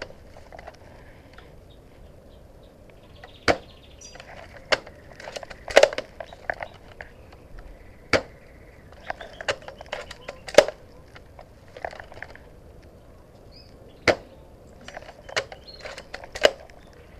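Sharp snaps and clicks from a scoped airsoft sniper rifle, a loud snap every two to three seconds with smaller clicks between, as the rifle is fired and handled.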